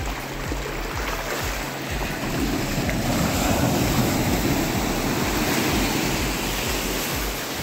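Sea surf breaking and washing up the beach around the shallows. It swells louder in the middle as a wave breaks and rushes in, with wind buffeting the microphone.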